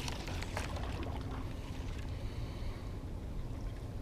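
Small waves lapping against the rocks of a riprap shoreline over a low, steady rumble.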